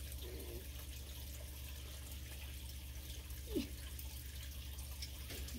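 Steady wash of running water over a constant low hum, with a brief squeak about three and a half seconds in and a few faint ticks of plastic being handled.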